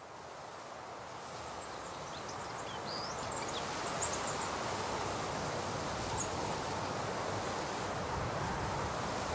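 Outdoor field ambience fading in: a steady rustle of wind through grass, with a few brief, high bird chirps about two to four seconds in and once more around six seconds.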